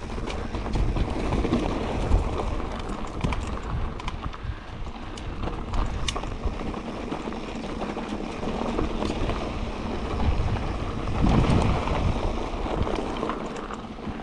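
Mountain bike riding downhill on a dirt trail: a steady rush of wind and tyre noise with frequent sharp clicks and rattles, swelling louder about eleven seconds in.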